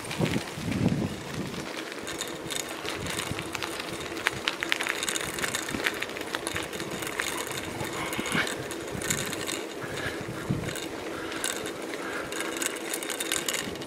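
Bicycle rolling along a rough, patched tarmac road: steady tyre noise with a faint hum and scattered clicks and rattles from the bike.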